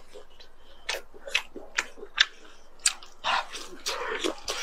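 Close-miked biting and chewing of grilled squid and tentacles, mukbang-style. Sharp mouth smacks and bites come about half a second apart, then a busier stretch of chewing near the end.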